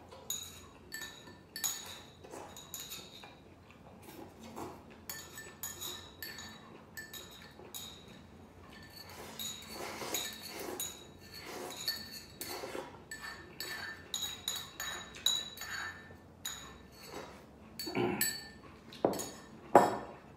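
Eating utensils clinking and tapping against dishes, many light irregular clinks with a ringing tone, the loudest coming near the end.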